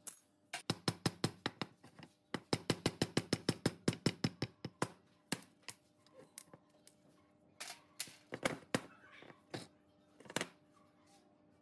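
Hammer tapping a punch on the old pneumatic impact wrench's metal housing to drive out a pin and free its brass valve. The taps come in two quick runs of about five a second, then slow to a few single, harder blows.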